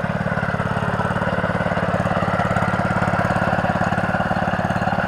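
A small engine running at a steady speed, with an even, rapid pulse.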